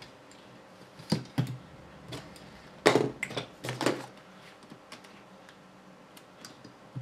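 Small clicks and knocks of plastic and metal RC kit parts and tools being handled during assembly: two knocks about a second in, a louder cluster about three seconds in, then a few faint ticks.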